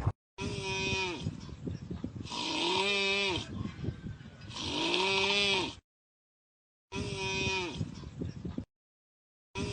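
Exaggerated, bleat-like snoring: about four long, pitched snores, each rising and then falling in pitch, broken by abrupt cuts to silence.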